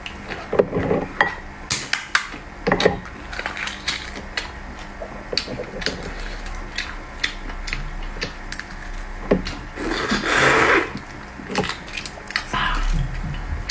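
Sharp clicks and taps of food and utensils being handled while eating, with a brief rustling burst about ten seconds in.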